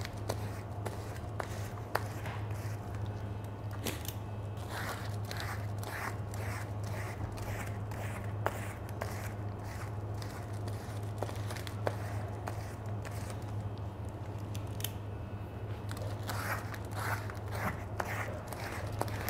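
Ice cream scoop scraping across the surface of frozen Italian ice, crunchy strokes in quick runs of about two a second, with a few sharp clicks. A steady low hum runs underneath.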